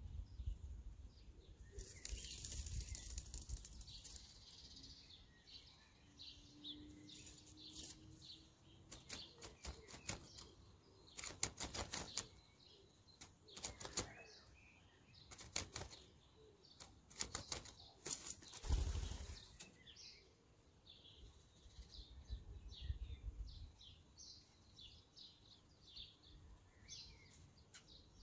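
Eurasian blackbird at its nest: repeated short bursts of rapid wing flapping and rustling of twigs, with the loudest flurry about two-thirds of the way through.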